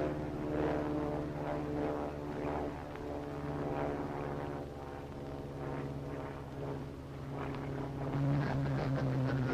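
Propeller aircraft engines droning: a steady pitched hum that swells and fades a little.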